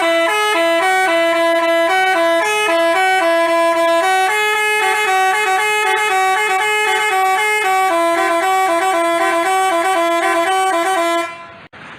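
Telolet "basuri" bus horn, a multi-tone musical horn, playing a quick melody of short and held notes, two notes sounding together; it stops about a second before the end.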